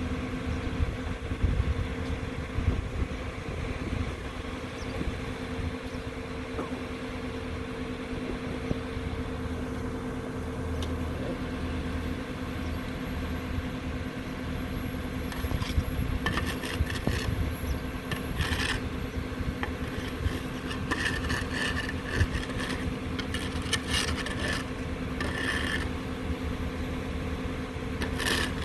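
A heavy construction machine's engine runs steadily with a constant hum. From about halfway through, it is joined by repeated scraping and clanking.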